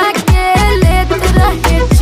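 Background music: an upbeat song with a steady beat and deep falling bass-drum hits about twice a second.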